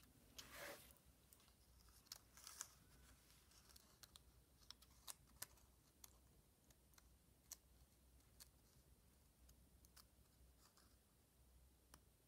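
Faint scattered snips and clicks of small scissors cutting paper.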